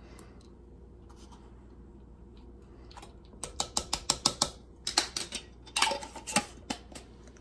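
Measuring spoon clinking and tapping against a container while baking powder is measured out: a run of quick, light clicks and taps starting about three seconds in, in a few short clusters.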